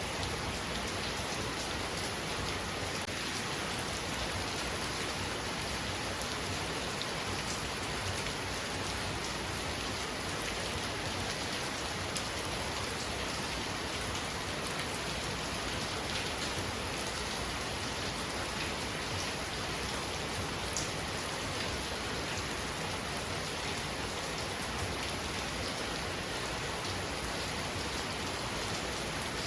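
Heavy rain falling steadily, a dense hiss with many individual drops ticking on surfaces.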